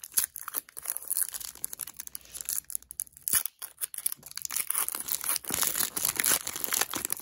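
Foil wrapper of a Pokémon trading-card booster pack being torn open and crinkled by hand. It makes a run of crackling rustles, goes briefly quiet a little past halfway, then crinkles steadily as the wrapper is pulled apart.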